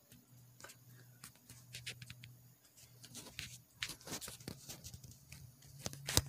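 Faint, irregular small clicks and rustling over a low steady hum, with one sharp click near the end.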